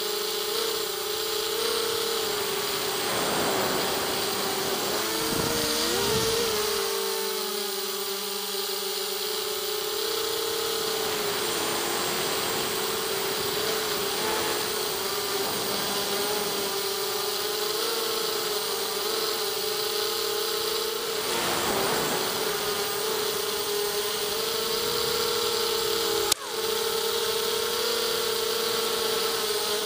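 Mini quadcopter's brushless motors and 5-inch propellers whining, the pitch wavering up and down with the throttle, heard from the onboard camera. About 26 seconds in there is a sharp knock as the quad touches the ground, and the motor sound drops briefly before it flies on.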